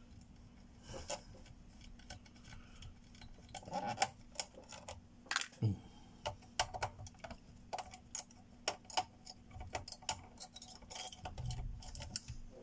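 Small screwdriver turning tiny screws out of a GeForce GTX 280 graphics card's cover: irregular light metallic clicks and ticks, a few to a second.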